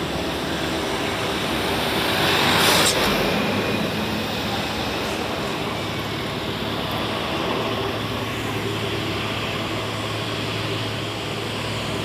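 Road traffic: diesel trucks running steadily as they come on, with a car passing close. A brief loud rush comes about three seconds in.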